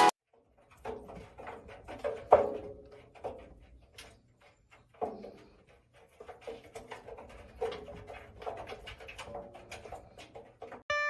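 A dog making a few short whines, with scattered light clicks and taps in a small room.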